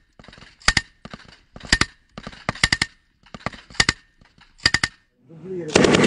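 Machine gun firing short bursts of two to four rounds, about one burst a second, then a louder, longer stretch of firing near the end.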